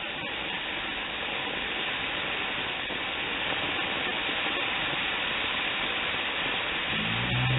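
Coke-and-Mentos geyser erupting, a steady rushing hiss of spraying soda that slowly grows louder.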